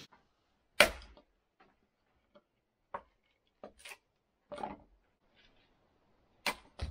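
Firewood being split on a chopping block: about half a dozen sharp chopping strikes at uneven intervals, the loudest about a second in.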